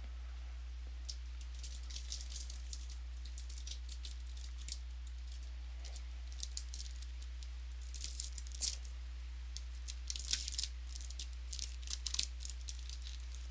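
Trading cards and their packs handled at close range: light, irregular clicks, rustles and crinkles, with the busiest stretches in the second half. A steady low electrical hum lies under it throughout.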